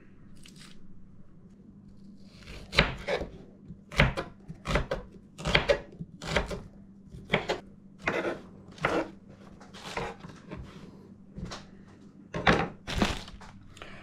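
Kitchen knife chopping a red onion on a wooden cutting board: a run of sharp knocks, about one or two a second, starting about three seconds in after some quieter handling.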